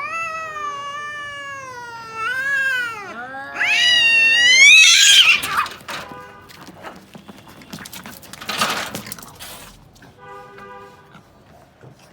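Cats caterwauling in a fight: long, wavering, drawn-out yowls that swell into a loud harsh screech about five seconds in, followed by a few seconds of rough noisy scuffling and a short yowl near the end.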